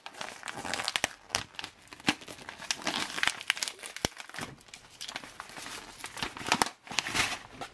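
Foil-laminated freeze-dried meal pouch being torn open along its top and crinkled in the hands: a dense run of crackling and rustling with sharper crackles here and there.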